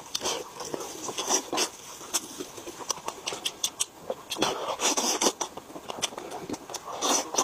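Close-miked eating: a person chewing and lip-smacking on braised meat, with many short, irregular wet mouth clicks.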